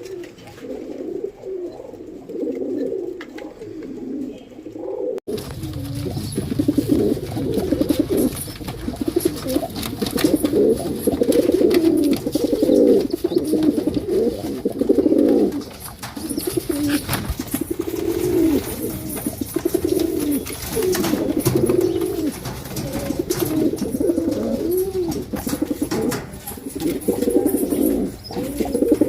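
Pigeons cooing, low rolling coos one after another and sometimes overlapping. About five seconds in the recording changes to a noisier one, with more background hiss and scattered clicks under the coos.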